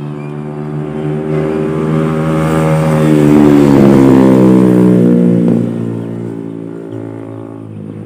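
A motor vehicle's engine passing close by, swelling to its loudest about four seconds in and then fading away.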